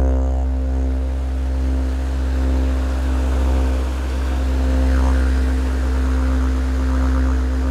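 Background music built on a steady didgeridoo drone, with a rising and falling sweep about five seconds in.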